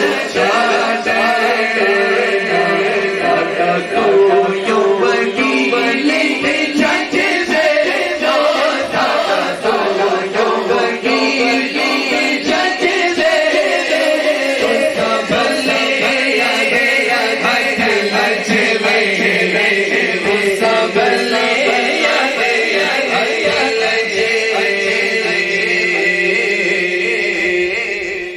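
Men's voices singing a devotional naat chant together, carried over a loudspeaker system; the singing is continuous and fades out right at the end.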